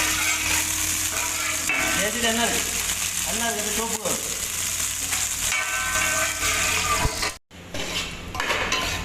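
Food frying and sizzling in a hot pan, with a utensil stirring and scraping against the metal. The sound drops out abruptly for a moment about seven seconds in.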